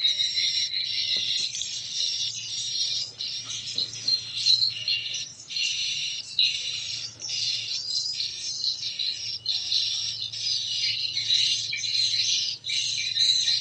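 Recorded swiftlet colony roosting sound ('inap sejuta koloni') played through a tweeter: a dense, continuous mass of high chirps and twitters with short gaps, over a faint low hum.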